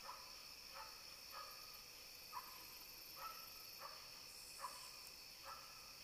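Faint chorus of night crickets trilling steadily, with a shorter, lower chirp repeating about once a second.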